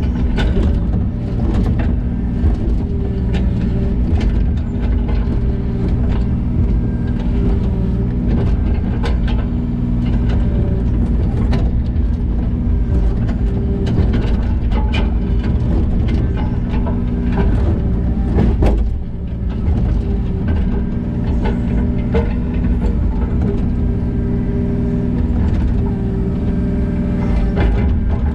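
Diesel engine of a work machine running steadily, with frequent short knocks and clanks throughout.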